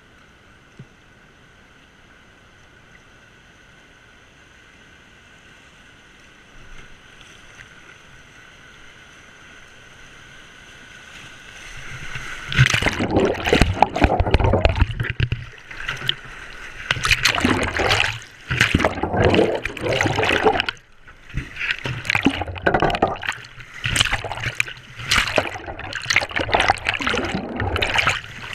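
Faint steady hiss of a flowing river, then from about twelve seconds in loud surges of rushing, gurgling whitewater breaking over the kayak's camera as it goes in and out of the water, with brief lulls between surges.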